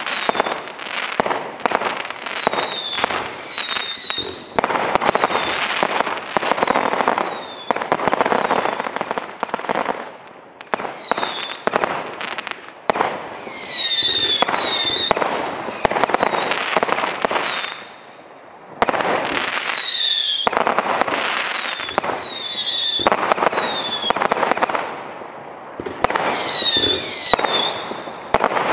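Black Mamba 604-shot, 0.6-inch fireworks cake firing in rapid volleys: a dense run of launch pops and crackling bursts, with repeated clusters of falling whistles. There is a short lull about 18 seconds in.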